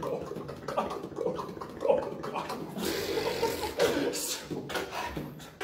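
Live beatboxing by one performer: a continuous run of mouth-made sounds with a few sharp clicks.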